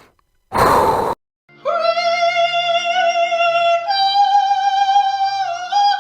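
A high singing voice holds one long note that steps up in pitch twice, after a short breathy burst about half a second in.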